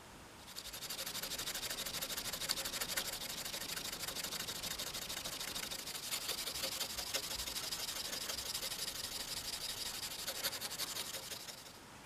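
Super fine steel wool rubbed over the main blade of a Craftsman Barlow pocket knife in quick back-and-forth strokes, a steady scratchy hiss, polishing the blade after sanding to 600 grit. It starts about half a second in and stops shortly before the end.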